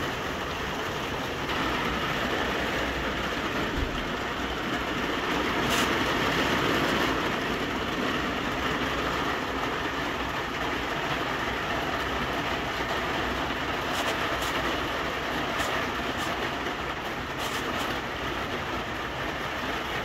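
Rain falling steadily on a small greenhouse, an even rushing noise with a few sharper taps of single drops.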